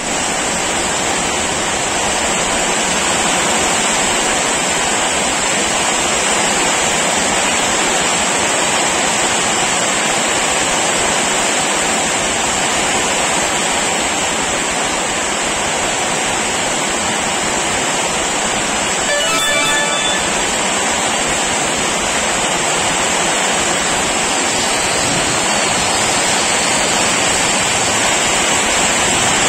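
Heavy rain pouring steadily, a dense even hiss. A brief high tonal sound cuts in about two-thirds of the way through.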